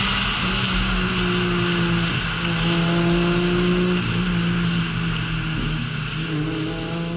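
Car engine running at road speed over tyre and road noise. Its pitch holds steady, dips a few times and climbs near the end.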